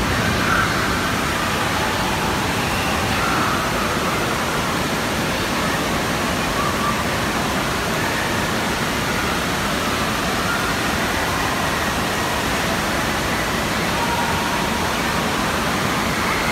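Steady rushing noise of an indoor waterpark's running water, with faint voices in the background.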